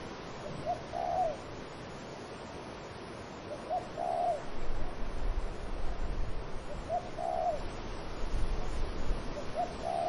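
Dove cooing: a short coo phrase about every three seconds, four in all, each a brief lead-in note and then a longer arched coo. Wind sounds throughout and grows into a low rumble about halfway through.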